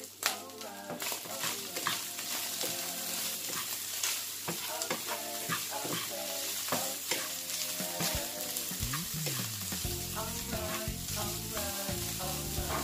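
Minced beef and sliced onion sizzling in a nonstick frying pan, stirred with a wooden spatula, with background music playing.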